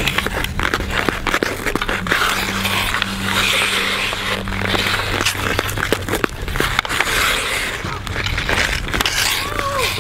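Ice-skate blades scraping and carving across rink ice, with frequent sharp clicks and knocks of hockey sticks and puck on the ice.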